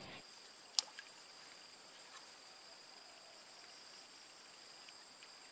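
Steady insect chorus: a continuous high-pitched drone at two pitches. A single short click comes about a second in.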